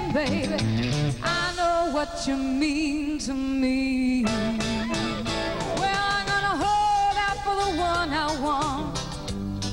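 Live rock band playing: a lead melody of bending, wavering notes, taken as an electric guitar solo, over bass and drums.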